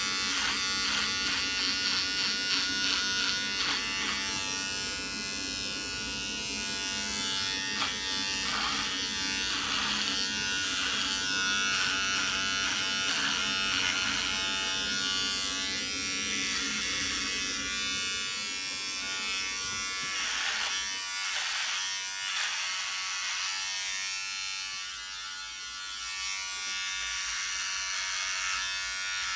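Handheld electric razor buzzing steadily as it cuts off a full, long-grown beard. Its hum dips and wavers now and then as the head bites into the thick hair.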